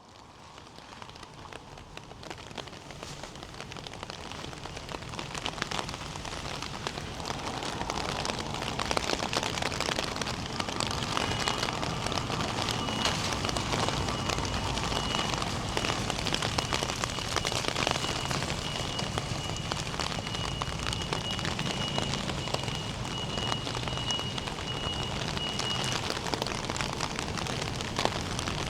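Steady rain falling on hard surfaces, a dense patter of drops that fades in over the first few seconds. A faint, thin high tone runs through the middle stretch.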